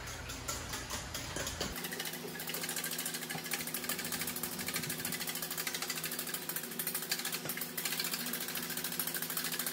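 A utensil beating an egg into liquid in a stainless steel bowl, clicking rapidly and steadily against the metal from about two seconds in.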